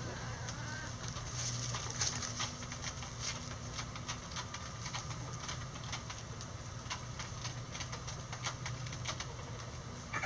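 Bantam chickens foraging in dry leaf litter: irregular crisp rustles and ticks as they scratch and peck, with a faint bird call near the start and a low steady hum underneath.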